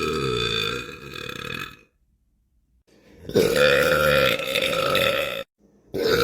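A man belching long and loud, three times: one belch trails off about two seconds in, a second lasting about two seconds comes after a short silence, and a third starts near the end.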